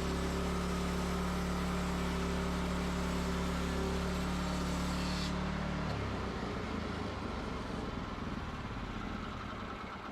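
Engine running steadily, then shut off about six seconds in, its sound dying away over the last few seconds.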